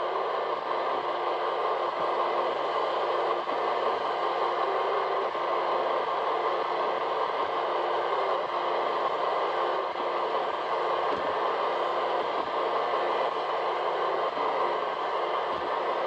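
iRobot Roomba 885 robot vacuum running up close: the steady whir of its vacuum motor and brushes, with small clicks and knocks here and there as it drives along the walls.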